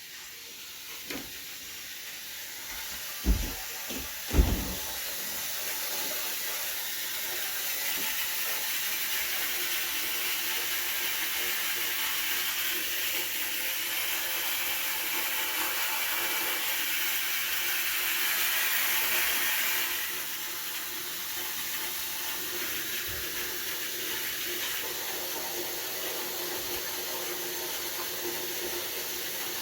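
Culligan water softener in its regeneration cycle: a steady, loud rushing hiss of water forced through the control valve. It builds over the first few seconds, grows louder for a stretch, then eases back somewhat about two-thirds of the way through. Two dull thumps come a few seconds in. The noise is extreme for a softener, and the owner doubts it should be this loud.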